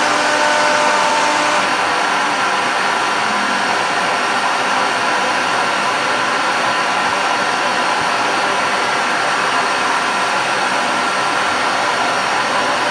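ATC CNC router's spindle running steadily while a bit cuts into a wooden door, a continuous high whine over a loud rushing hiss of cutting and air.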